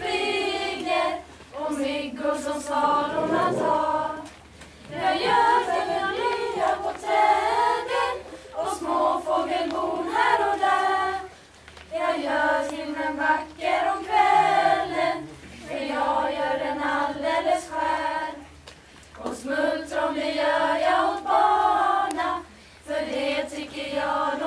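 A small choir of teenage girls singing unaccompanied, phrase after phrase, with brief pauses for breath between phrases.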